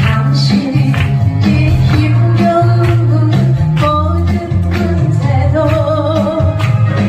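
Korean Christian praise music: singing over a band, with a strong bass line and a steady drum beat.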